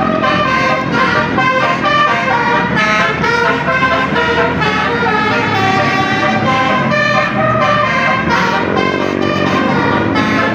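Indonesian bus 'telolet' multi-tone air horn playing a fast melody of overlapping horn notes. It is loud and continuous, with the notes changing every fraction of a second.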